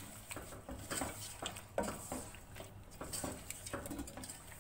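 A spoon stirring chicken and masala in a cooking pot, with irregular scrapes and clinks against the pot a few times a second.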